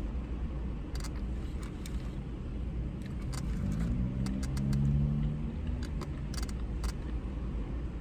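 Chewing and crunching on fried chicken, with scattered short mouth clicks and smacks, over a steady low rumble inside a car. A low hum rises and holds for about two seconds midway.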